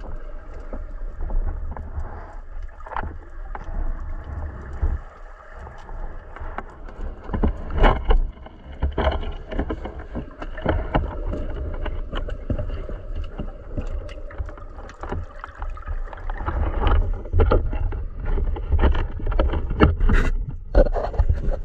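Underwater sound from a camera in its waterproof housing as a spearfisher swims: a steady, muffled low rumble of moving water with scattered clicks and knocks against the housing and speargun. It grows louder and busier in the last few seconds as he rises toward the surface.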